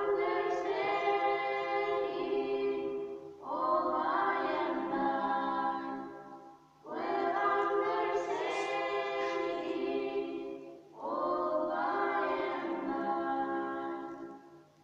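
Girls singing together without accompaniment, in four long held phrases with short breaks for breath between them. The last phrase fades out near the end.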